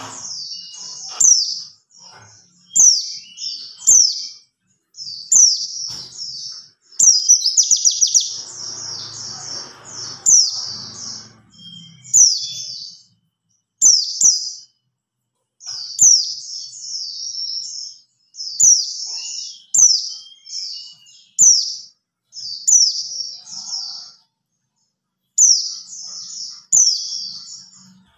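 White-eye (pleci) calling: clusters of short, high chirps, each falling in pitch, repeated every second or so with short pauses, with a quick rattling trill about seven seconds in.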